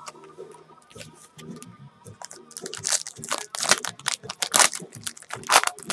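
Foil wrapper of a Panini Prizm World Cup trading-card pack being torn open and crinkled by hand. It is quiet at first, then a rapid run of sharp crackles starts about two and a half seconds in.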